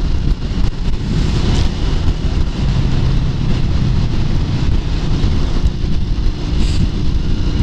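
Heavy wind buffeting on the microphone over the engine of a 1996 Yamaha SRV250 Renaissa, a 249 cc air-cooled V-twin, which is running steadily as the motorcycle is ridden at speed.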